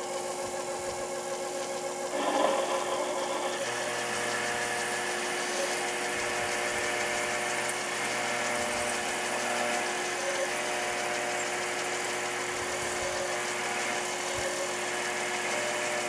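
Sherline mini lathe's motor running steadily while a 3/8-inch split-point drill bit in the tailstock bores into the spinning aluminium workpiece. A rough cutting noise comes in about two seconds in and holds. The bit wandered off centre on entry for lack of a starter hole and is shaking in the cut.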